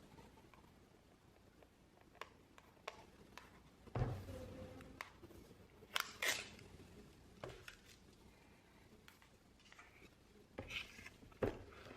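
Objects being handled at close range: scattered light clicks and taps, a soft thump about four seconds in, and short rustles around six seconds in and again near the end.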